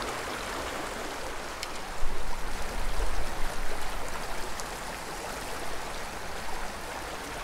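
Small shallow creek flowing, a steady rush of water. A low rumble swells about two seconds in and eases off over the next few seconds.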